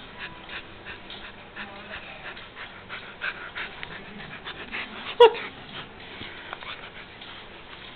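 Alaskan Malamute puppy mouthing a hand in play: breathing and small clicking noises, and about five seconds in one short high whine that drops quickly in pitch.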